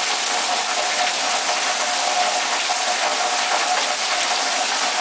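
Heavy thunderstorm downpour: a steady, loud hiss of rain, with water gushing off an overflowing roof edge close by.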